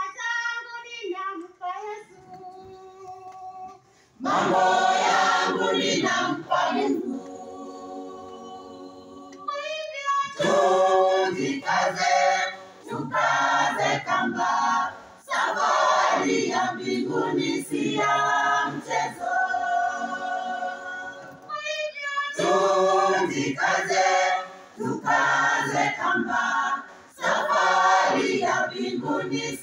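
Church choir singing a gospel song, loud full-voiced passages alternating with quieter held lines.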